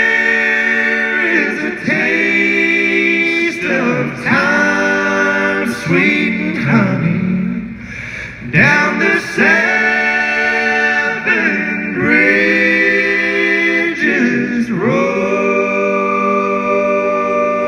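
Four men singing unaccompanied in close bluegrass harmony through a PA. They sing in phrases of a couple of seconds each and end on a long held chord.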